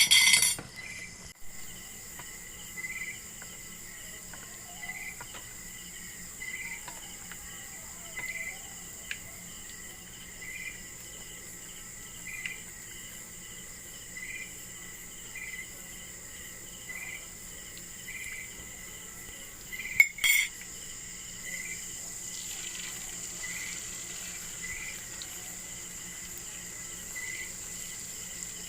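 Crickets chirping: a steady high trill with a short chirp repeating about once a second. Cutlery clinks at the very start, and there is a sharp click about twenty seconds in.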